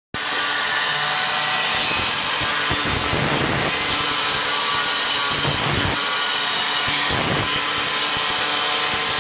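Electric angle grinder with a sanding disc running continuously while sanding the fiberglass underside of a sailboat's deck, a steady motor whine under a loud abrasive hiss that swells a few times as the disc bites.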